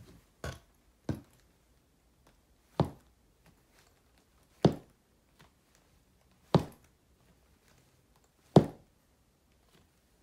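Chunky block heels of platform ankle boots stamping on a hard floor: six sharp knocks, the last four about two seconds apart, mostly growing louder, with the last the loudest.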